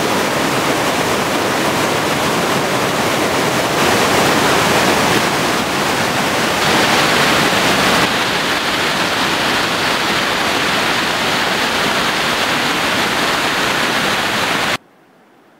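Loud, steady rush of whitewater from a river tumbling over rocks, which cuts off abruptly near the end.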